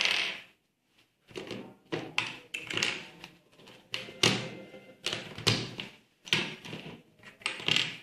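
Plastic Rubik's cube pieces clicking and clacking as they are handled and snapped back into a 3×3 cube: irregular sharp clicks, often in quick pairs, one to three a second.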